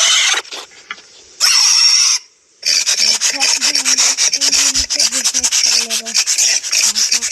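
Scratchy rubbing noise: a short burst about a second and a half in, then dense, rapid scratching from about two and a half seconds in, with a faint wavering hum underneath.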